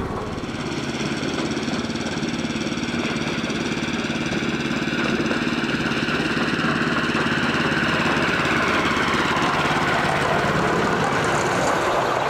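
Petrol engine of a 7¼-inch gauge miniature locomotive running steadily while hauling the train. About a third of the way in, its note and a whine rise gently in pitch and get a little louder as it picks up from walking pace after the points.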